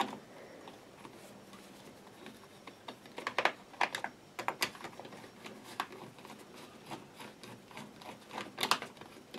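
Irregular small clicks and scrapes of a screwdriver working the screws of a Lucas ACR alternator's plastic end cover as the cover is pressed and fastened into place. The clicks come in clusters about three and four seconds in and again near the end.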